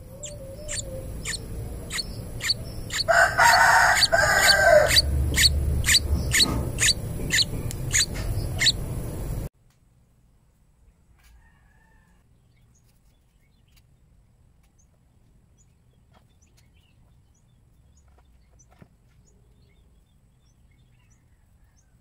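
Nestlings cheeping in a quick, even series of short high notes, about two a second, with a louder, longer call over them from about three to five seconds in. The sound cuts off abruptly at about nine and a half seconds, leaving near silence with a few faint chirps.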